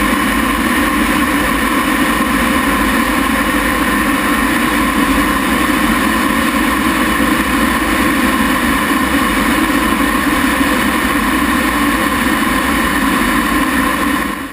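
The T-33 T-Bird's single Allison J33 turbojet running steadily at a constant pitch, a loud, even roar with a steady whine. It starts and stops abruptly at a cut.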